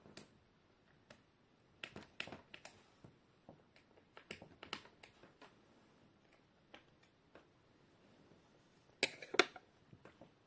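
Light scattered clicks and taps of hands handling a laptop's plastic screen assembly, with a louder cluster of knocks about nine seconds in.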